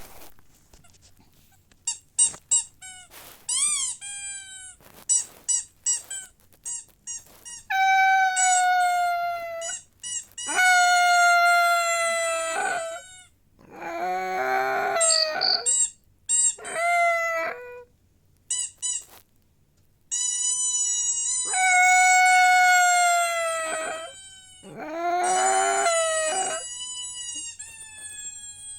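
A dog howling in a series of long drawn-out notes, each one to two seconds, sliding slightly down in pitch, with pauses between. In the first several seconds there is a run of short high squeaks.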